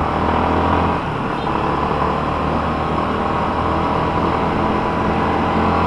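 Yamaha Sniper 155 motorcycle's single-cylinder engine running under way as the bike picks up speed, with a steady rush of wind and road noise over the handlebar-mounted microphone.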